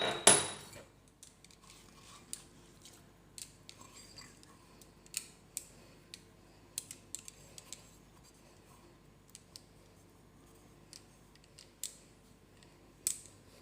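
Light clicks and taps of kitchen handling, scattered irregularly, with a louder knock right at the start.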